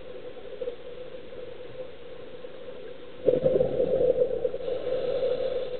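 Scuba regulator breathing underwater: a steady faint hum, then about three seconds in a loud burst of exhaled bubbles gurgling past the camera for a couple of seconds.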